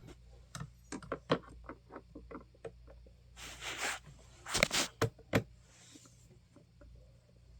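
Scattered small clicks and knocks of the plastic front guard of a Honeywell HT-900 fan being handled and fitted, with a short scraping rustle a little after three seconds and a few louder clacks around five seconds in.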